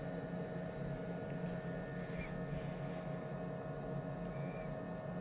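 Steady low hum with faint high tones from workshop electrics or a fan, and a faint tick or two as a small hardened-steel part is handled against a steel machine vise.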